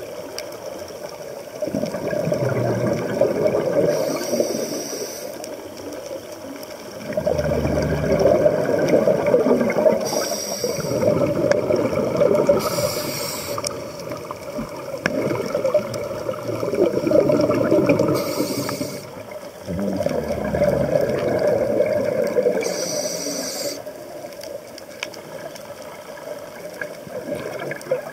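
Scuba diver breathing through a regulator, heard underwater: a long bubbling rush of exhaled air every five or six seconds, each breath ending in a short high hiss as the regulator delivers air on the inhale, about five breaths in all.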